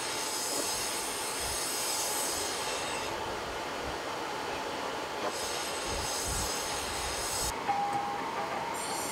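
Coal forge fire running hard under forced air: a steady rushing roar, with a high whine that fades in and out a few times.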